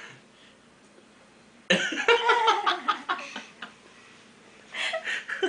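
A baby laughing: quiet at first, then a sudden high-pitched burst of laughter about two seconds in that lasts a couple of seconds, and a shorter bout near the end.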